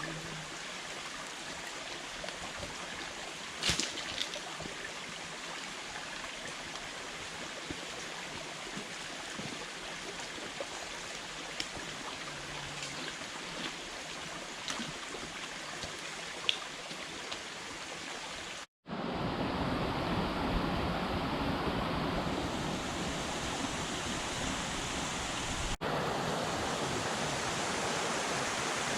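Steady rushing of a stream's running water with a few faint ticks, cutting off briefly about two-thirds through and coming back louder and rougher.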